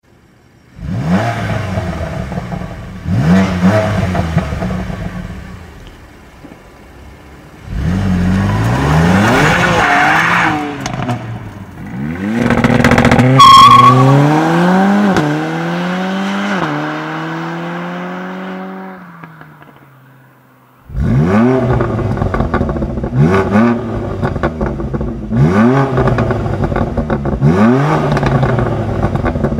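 Turbocharged sports car engine revved hard, then pulling up through the gears with its pitch climbing and stepping down at each of two shifts before fading away. From about two-thirds of the way in, quick sharp throttle revs about every two seconds.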